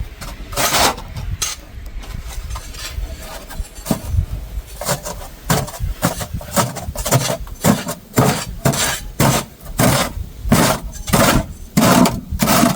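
Snow crunching and scraping in a steady run of short strokes, about one and a half a second, from about five seconds in.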